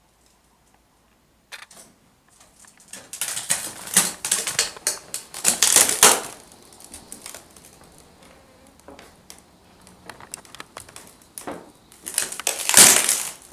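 Crackling, clattering handling noise of debris and loose objects being moved and stepped on, in two busy bouts of sharp clicks: one from a few seconds in, the other near the end.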